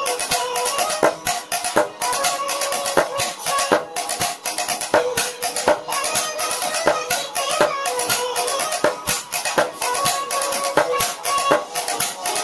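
Fast, rhythmic pen tapping: plastic ballpoint pens striking a tabletop and clicking against each other in a steady drum-like pattern, over a pitched music backing track.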